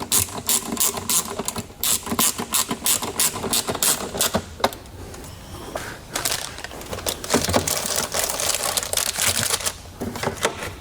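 Hand ratchet clicking in quick runs of strokes, a few clicks a second, with a pause about halfway, as fasteners are tightened while the parts around the battery are put back together.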